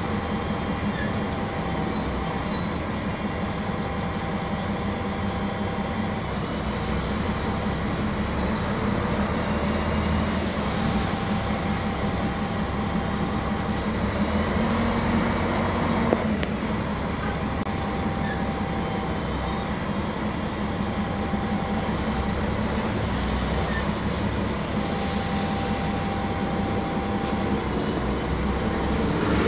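Mercedes-Benz O-500 MA articulated bus's OM-457 LA six-cylinder diesel running under way, heard from inside the bus, a steady drone with brief high squeaks twice.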